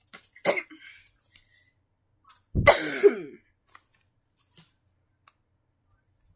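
Scattered clicks and bumps, with one loud, short cough-like vocal burst about two and a half seconds in whose pitch slides downward.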